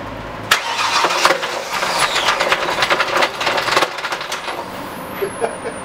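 Ford Taurus engine with a broken connecting rod through its oil pan catching about half a second in and running with loud, rapid knocking: the sound of a destroyed bottom end.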